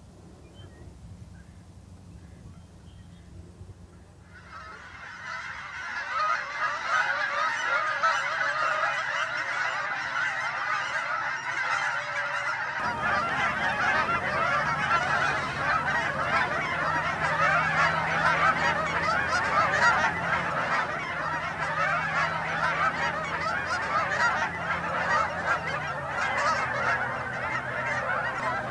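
A large flock of geese honking, many calls overlapping into a continuous din. It starts about four seconds in and carries on without a break.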